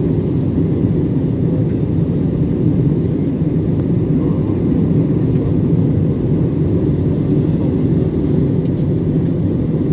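Steady drone of a jet airliner in flight, heard from inside the passenger cabin: engine and airflow noise.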